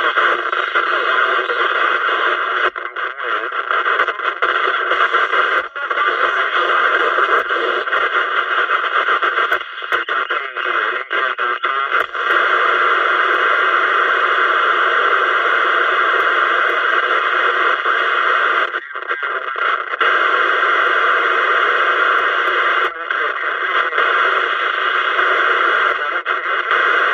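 Audioline 27 MHz CB radio's speaker giving out a steady wash of splatter and noise on channel after channel as the channel knob is turned, the sound dipping briefly several times at the changes. The splatter on every channel is the sign of crowded band conditions, with stations bleeding over onto neighbouring channels.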